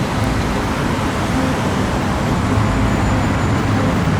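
Steady freeway traffic noise: a continuous rush of passing vehicles with a deep rumble underneath.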